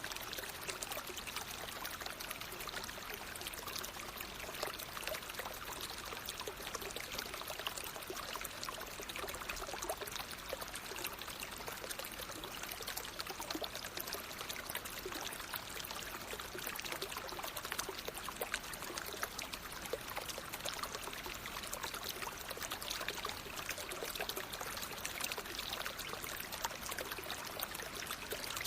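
Water of a natural stream flowing and splashing in a steady, even babble that does not change.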